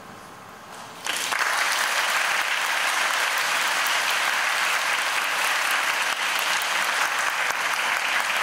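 Audience applause that breaks out suddenly about a second in and carries on steady and dense.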